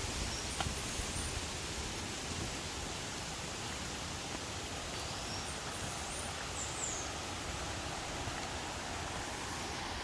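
Steady rush of flowing river water. A few faint, brief high chirps come about a second in and again around five to seven seconds in.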